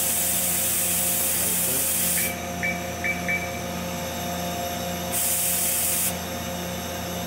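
Spray nozzles in the CNC lathe's machining area hissing, switched off a couple of seconds in and on again for about a second near the end, over the steady hum of the running machine. Four short beeps come in the middle.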